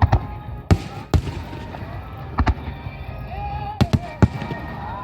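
Fireworks shells bursting overhead: about nine sharp bangs in quick pairs and clusters over a low rumble, with music playing underneath.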